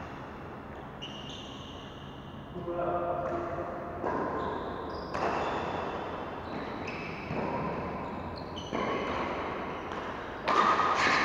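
Badminton play in a large, echoing sports hall: a handful of sharp hits spaced a second or more apart, with high squeaks ringing after them, the loudest hit near the end, and players' voices.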